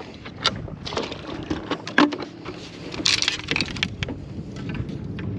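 Irregular clicks and knocks of fishing rods and tackle being handled on a bass boat's front deck. A low steady hum from the electric trolling motor comes in about halfway through.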